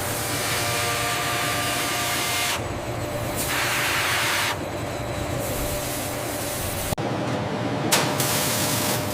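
Steady hissing spray noise, like a pressurised jet, that changes abruptly a few times. It brightens for about a second in the middle, is cut by a sharp click about seven seconds in, and has a brief louder burst a second later.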